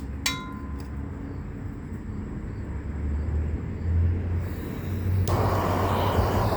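A single hammer blow on the steel shovel blade, ringing briefly, followed by a steady low rumble that swells, and about five seconds in a loud rushing noise that starts suddenly.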